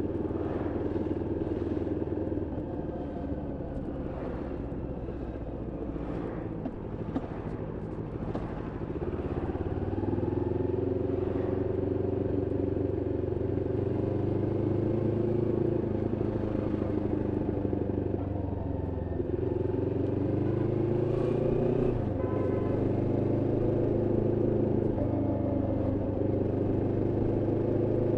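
Moto Morini X-Cape 649's parallel-twin engine being ridden during running-in. It runs quieter at first, then pulls louder from about ten seconds in, its pitch rising and then dropping at gear changes a couple of times.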